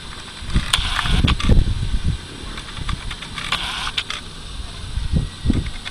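Wind rumbling on the microphone, with two short bursts of rustling and scraping, about a second in and again about three and a half seconds in, as a herring gull and a lesser black-backed gull grapple beak to beak on a slate roof.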